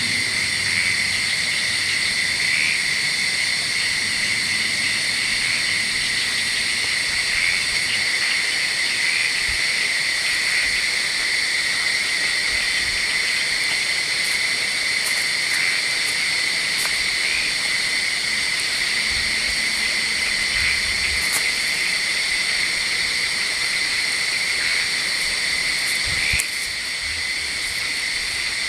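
Steady chorus of forest insects: several unbroken high-pitched tones layered together, with a short knock near the end.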